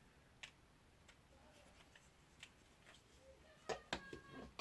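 Faint, sparse clicks and light taps of small screws and a screwdriver being handled during drone disassembly, with a few sharper clicks close together near the end.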